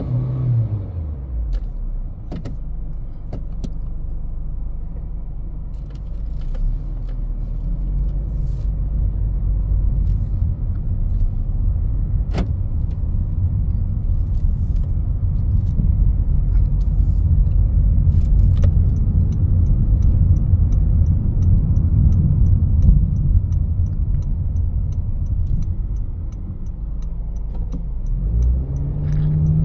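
A 2021 Honda HR-V's 1.8-litre four-cylinder engine drops in revs as the driver lifts off, then a steady low road and tyre rumble carries on as the car drives along, growing louder, with a few light clicks and a faint fast ticking in the second half. About a second before the end the engine climbs in revs again under acceleration.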